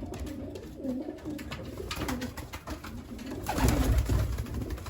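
Racing pigeons cooing in the loft, a run of short repeated low coos, with scattered clicks and a louder burst of noise about three and a half seconds in.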